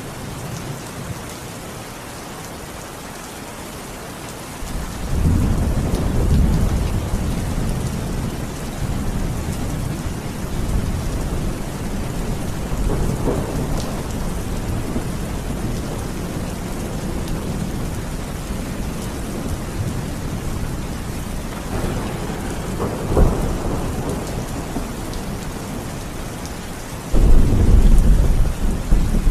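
Steady heavy rain with thunder: a deep rumble swells in about five seconds in and rolls on, a sharper crack comes about two-thirds of the way through, and a loud clap breaks near the end.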